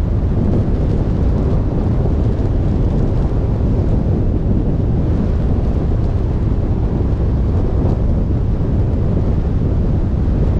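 Wind buffeting the microphone of a camera mounted on the roof of a moving van, a steady, loud, low noise mixed with the van's road noise.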